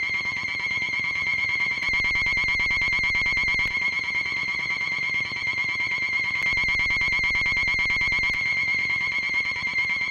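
Analog synthesizer recreation of King Ghidorah's trilling cry from the Showa Godzilla films: one high electronic tone with a rapid, even warble, held steady and fading out near the end.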